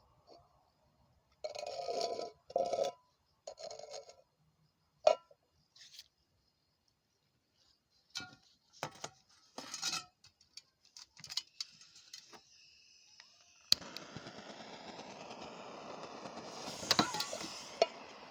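Metal can being handled: short scrapes, clinks and a sharp tap. Then a steady hiss starts abruptly about fourteen seconds in and swells a little, with a few sharp ticks near the end.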